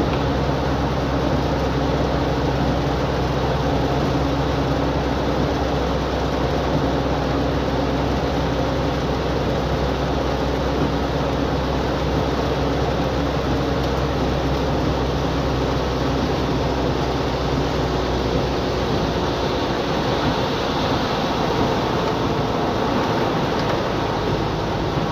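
Steady low rumble and hiss inside a car driving on a rain-soaked road in heavy rain: engine and tyre noise mixed with rain and road spray.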